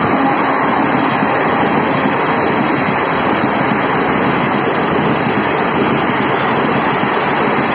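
Even, loud rushing roar of express-train coaches passing close by at high speed as two trains cross each other.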